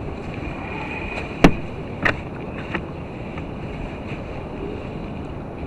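Wind and choppy water washing against a fishing kayak's hull, with two sharp knocks about a second and a half and two seconds in, then a fainter one.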